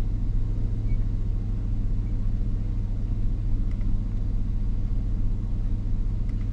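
Chevrolet 4.8 L V8 idling steadily, an even low rumble. It is the engine of a truck being diagnosed for a misfire, with misfire history logged on cylinders 2, 4 and 6 of bank 2.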